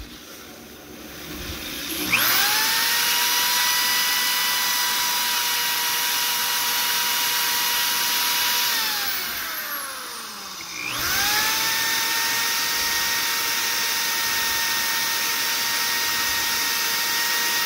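A power drill spins the oil-pump drive shaft of a small-block Mopar 318 while oiled fine sandpaper is held against it to polish out scoring. The motor whines up to speed about two seconds in, runs steady, and winds down with a falling pitch around nine seconds. It spins up again near eleven seconds and runs steady.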